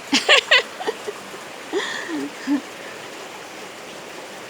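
Steady rush of floodwater running during a night storm. Brief voices call out over it twice: near the start and again about two seconds in.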